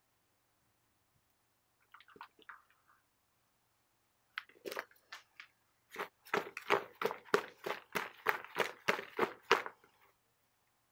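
Hands mixing raw turkey pieces with dry seasoning in a plastic bowl: a quick run of wet, rubbing strokes, about four a second for roughly four seconds, starting about six seconds in. A few soft scattered taps and rustles come before it.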